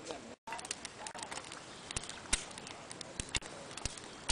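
Driftwood campfire crackling, with irregular sharp pops and snaps several times a second.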